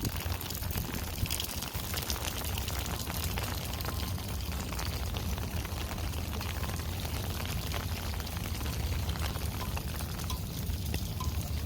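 Steady rain falling, a continuous hiss of many drops with a low rumble underneath.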